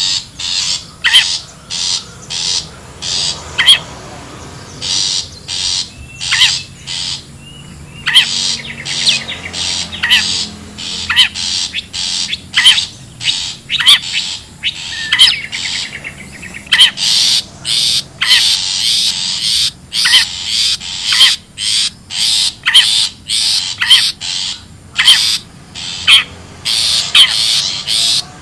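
Long-tailed shrike (cendet) giving a long series of short, harsh, scratchy calls, about one to two a second, the wild call used as a lure to draw birds in for trapping.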